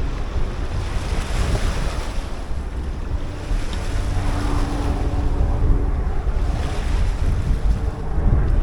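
Strong wind buffeting the microphone as a heavy low rumble, over the wash of surf, with a faint steady drone in the middle.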